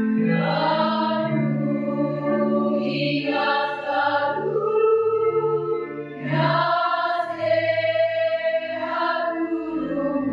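Women's choir singing in phrases of long held notes, the voices swelling and falling, with a short break about six seconds in before the next phrase.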